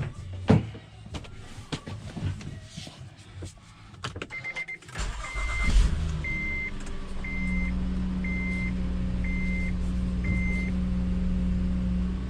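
Scattered clicks and knocks, then about five seconds in the 2016 Honda Odyssey's 3.5-litre V6 starts and settles into a steady idle on its first run after an oil change. A dashboard chime beeps about once a second, seven times, over the idle.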